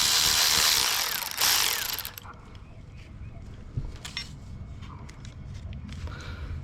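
A ratchet wrench run fast, loosening a 10 mm bolt: a dense, loud rattle for about two seconds with a brief break, then a few light metallic clicks and knocks as the bolt and tool are handled.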